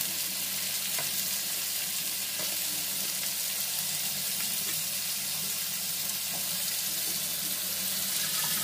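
Onions frying in hot oil in a kadai, a steady sizzle, as raw chicken and liver pieces are added by hand, with a few faint ticks.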